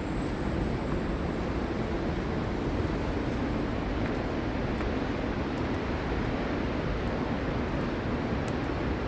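Steady road and engine noise of a moving car, heard as an even rumble.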